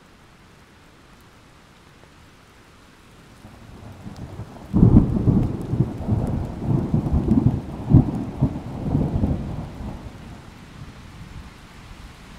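Thunderstorm: light rain hissing steadily, then a roll of thunder that swells in about three and a half seconds in, breaks loudly a second later and rumbles on in several peaks for about five seconds before dying away under the rain.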